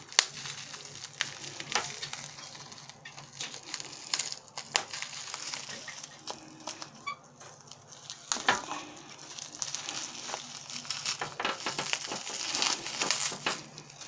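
Clear plastic film wrapping crinkling and crackling as hands tear and peel it off a small box, with irregular sharp snaps of the plastic, the loudest just after the start and about eight and a half seconds in.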